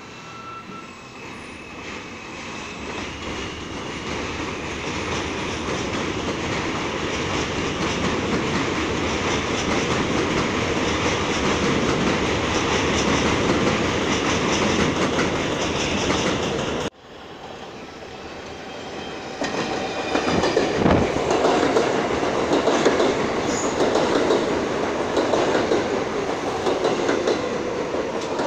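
Subway trains on an elevated steel line: wheels clatter over the rail joints as a train runs through, growing louder over the first several seconds. The sound breaks off abruptly about two-thirds of the way in. A train then comes in close alongside, loud, with squealing tones rising from the wheels and brakes near the end.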